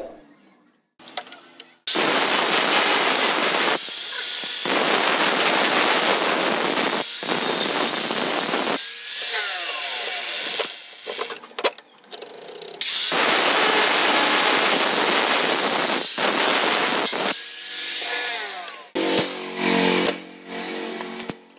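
A power tool motor running loud with a harsh hiss in two long stretches of several seconds each, its pitch falling as it winds down after each stretch.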